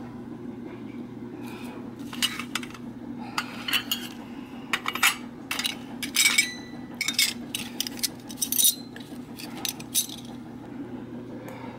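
1960s Ohio Art tin toy tea set pieces (plates, saucers and cups) being picked up and set down by hand, making a string of light metallic clinks and clatters, some ringing briefly.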